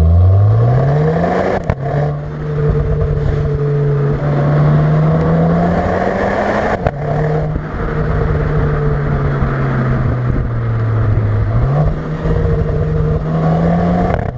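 Renault Clio R.S. 18's turbocharged four-cylinder engine through its Akrapovič exhaust, revving hard under acceleration. The pitch climbs fast, then drops with a short crack about two seconds in and again about seven seconds in, as the gearbox shifts up. It eases down and picks up again near the end.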